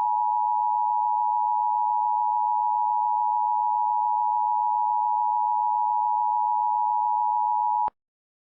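Emergency Alert System attention signal: a steady two-tone alert tone that sounds before a spoken emergency message. It holds at one level for about eight seconds and cuts off abruptly near the end.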